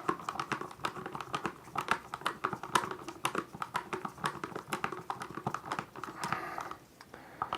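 Stiff 14-gauge electrical wire being bent and handled at a switch box: a fast, irregular run of small clicks and crinkling.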